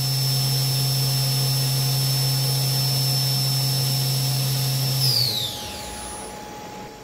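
Fryer MC-10 vertical machining center's CAT 40 spindle running at its top speed of 8,000 RPM with a steady high whine over a low hum. About five seconds in it is shut off, and the whine falls in pitch as the spindle spins down.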